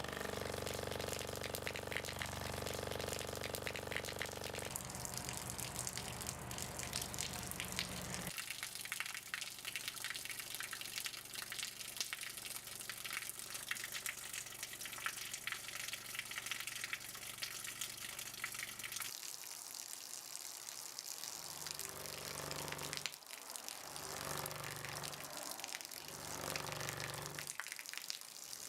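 Water running from a rubber hose in a steady hissing stream, over a low buzzing hum from the speaker the hose is taped to as it vibrates the hose with a low test tone. The hum changes character several times and pulses on and off near the end.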